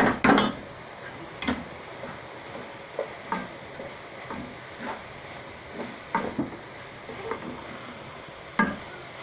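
A steel colander clattering against an aluminium pot in the first half-second, then a spoon stirring cooked zarda rice in the pot, with light scrapes and taps on the pot's side and one louder knock near the end.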